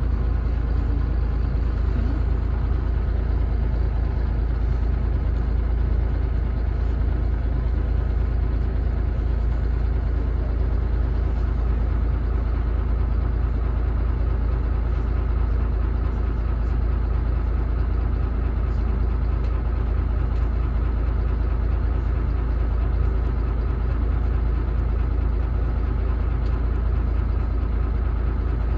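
A route bus's engine and running gear heard from inside the cabin: a steady low drone with road noise and a faint steady whine, unchanging throughout.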